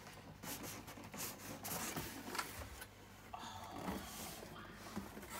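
Cardboard box flaps rubbing and scraping in a series of faint, irregular rustles as the box is opened by hand.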